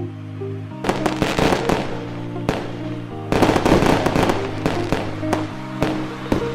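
Fireworks going off in two dense crackling volleys, one about a second in and a longer one past three seconds, with single sharp bangs after, over steady background music.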